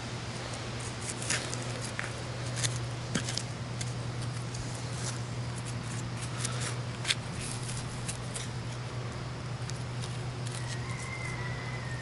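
Hand digging in loose forest soil and leaf litter: scattered scrapes, light clicks and rustles as a digger and hands work through the dirt and debris, over a steady low hum.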